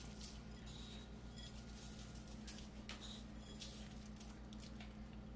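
Faint, light pattering and rustling of sev (crisp fried gram-flour noodles) being sprinkled by hand onto chaat, over a steady low hum.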